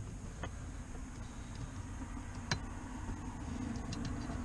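Light clicks and taps from the switch panel and dash trim being handled during fitting, with one sharper click about two and a half seconds in, over a low, steady background rumble.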